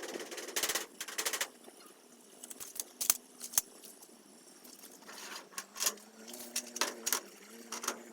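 Cordless drill driving screws in several short bursts of motor whine, with clicks and knocks of handling in between.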